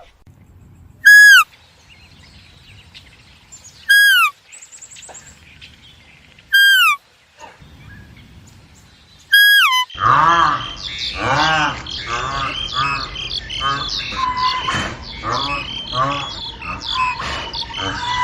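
Bird calls: four short, loud, identical calls, each falling in pitch at its end and spaced a few seconds apart, then a dense chorus of many overlapping calls.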